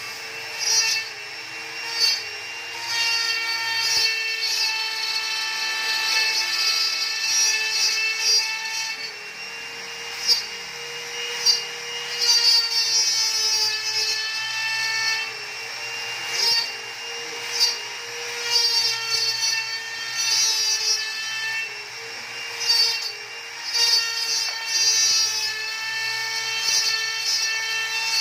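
CNC router cutting into a wooden board: the spindle runs with a steady whine while the bit rasps through the wood. Some of the whining tones glide up and down as the head moves, and short louder rasps come every second or two.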